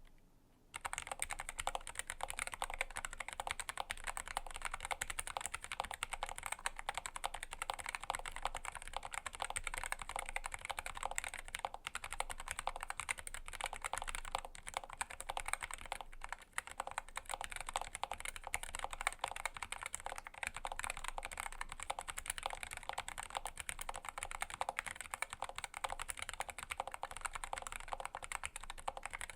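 Typing on a Bullet Train mechanical keyboard with an FR4 plate and Gateron KS-33 Brown tactile switches: a fast, continuous stream of key clicks that starts about a second in, with a brief pause about halfway through.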